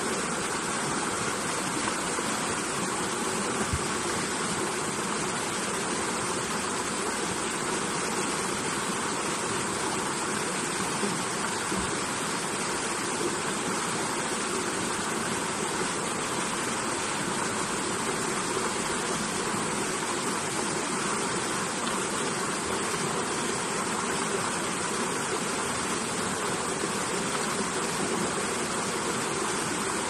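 Stream water rushing steadily over rocks and pebbles, with a small cascade of rapids close by.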